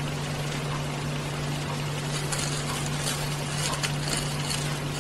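Steady hiss with a low hum throughout, and from about two seconds in, faint scratches of a glue brush stroking around the plastic speaker mount of a headphone ear cup.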